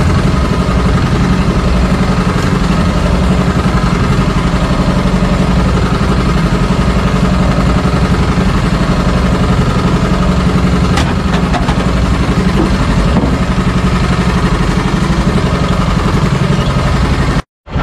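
Outrigger fishing boat's engine running steadily, cutting out for a split second near the end.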